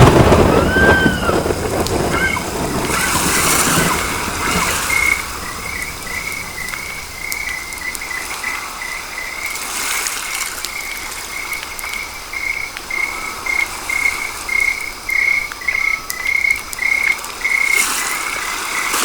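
A small animal chirping the same short call over and over, about twice a second, over a steady hiss like rain.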